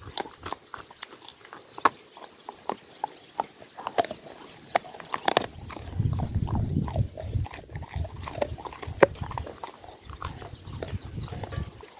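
A dog gnawing on a bone: irregular crunches and cracks of teeth on bone, a few of them sharp and loud. A low rumble comes in about six seconds in and lasts a few seconds.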